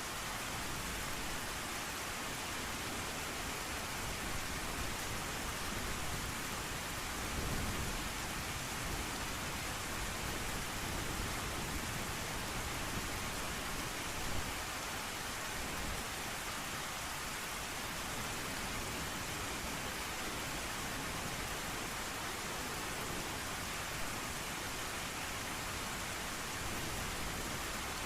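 Steady heavy rain falling, with a low roll of thunder about seven seconds in.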